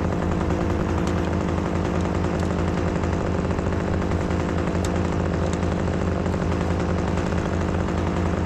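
Work-equipment engine running steadily at a constant speed, a low even hum that does not rise or fall.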